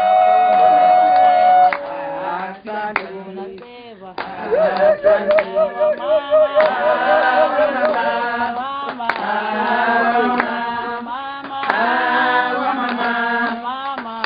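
Women's voices singing unaccompanied: a long held high note that stops about two seconds in, then after a short quieter lull a single voice wavering on one pitch, and from about six seconds in several voices singing together.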